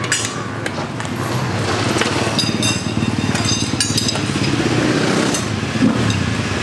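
A motorcycle engine runs with a steady drone, swelling in the middle. Over it come a few sharp metallic clinks of steel tyre irons against a dirt-bike wheel rim as a tyre is worked on a tyre-changer stand.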